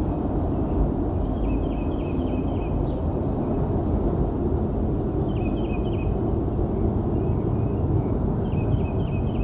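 Deep, steady rumbling that the uploader takes for engine testing at a nearby military base. A bird chirps in short repeated phrases over it three times.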